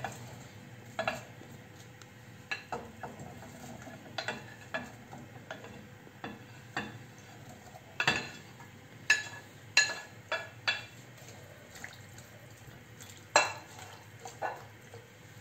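A wooden spatula knocking and scraping on a ceramic plate and the rim of a nonstick saucepan as chopped vegetables are pushed into chicken stock and stirred. The knocks are irregular, the loudest about eight seconds in and again near the end, over a faint steady hum.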